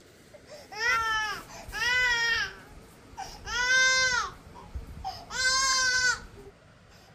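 A baby crying: four cries in a row, each rising and then falling in pitch, with short breaths between them.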